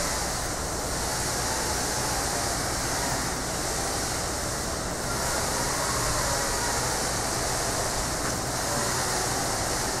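Steady, even rushing noise with no distinct events.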